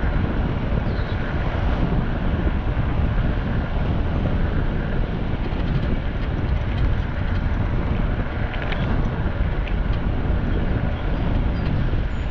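Steady low rumble of a moving vehicle with wind rushing over the microphone, unchanging throughout.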